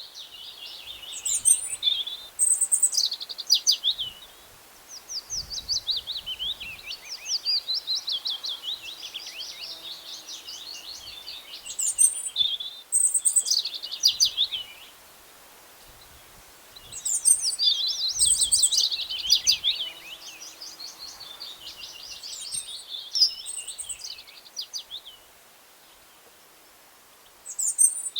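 Songbirds singing: phrases of rapid, repeated downward-sweeping notes mixed with sharp high chirps, broken by short pauses every several seconds.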